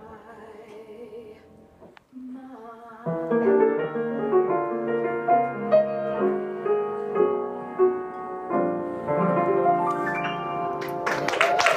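Piano music with separate sustained notes, quiet at first and fuller from about three seconds in. Near the end a loud voice holding wavering, vibrato notes comes in.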